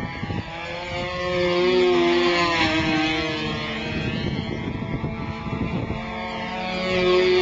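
A control-line model airplane's small engine running flat out as the plane circles the pilot. It swells and drops in pitch each time it passes close by, about every five seconds.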